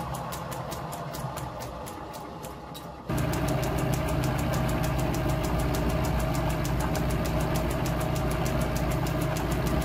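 Small vintage Lorch lathe running, its spindle turning an end mill that cuts a slot in a brass nut: a steady hum with a fast, even ticking of about seven a second. It gets suddenly louder about three seconds in.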